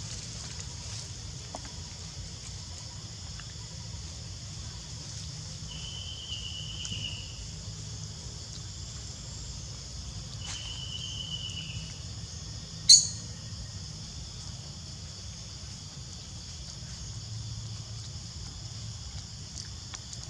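Steady, high insect chorus, with a low rumble underneath. Two short high calls come about a third of the way in and again about halfway, each falling off at the end. A sharp click soon after is the loudest sound.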